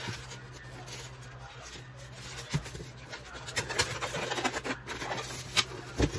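Styrofoam packing box handled and slid off a clear plastic incubator tub: squeaky rubbing and scratching with scattered knocks, growing busier in the second half, with a couple of sharp knocks near the end.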